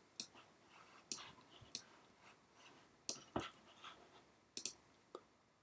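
Faint, scattered clicks of a computer mouse and keyboard, about seven short sharp clicks spread irregularly with quiet gaps between.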